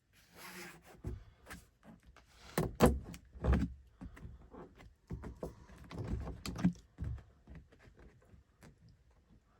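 Irregular knocks, clunks and rattles of metal seatbelt hardware and tools being handled and fitted inside a vehicle, with some rustling; two heavier thuds about three seconds in are the loudest.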